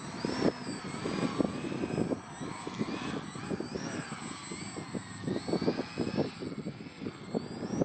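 Small electric foam RC aerobatic plane's motor and propeller whining overhead, the pitch rising and falling as the throttle changes, with strong gusty wind buffeting the microphone.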